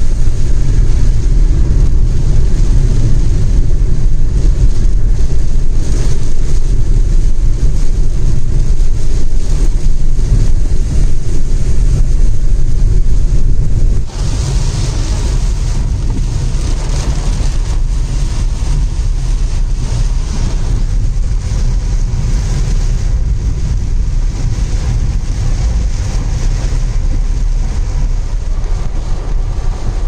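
Road and wind noise from a moving vehicle: a heavy, steady low rumble. About halfway through it drops a little in level and a higher hiss comes in.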